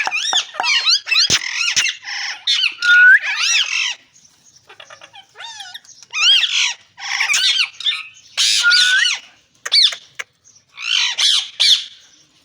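Ring-necked parakeet squawking and chattering in quick bursts of sharp, rising and falling calls, going softer for a couple of seconds about four seconds in before the loud squawks resume.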